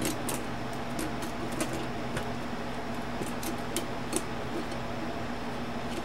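Faint, irregular small clicks of metal typewriter parts being handled and fitted by hand, over a steady background hum.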